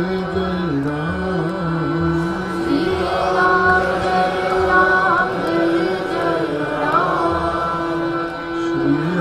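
Hindu devotional chant sung by a man's voice in long, slowly ornamented held notes, with a harmonium sustaining chords beneath it.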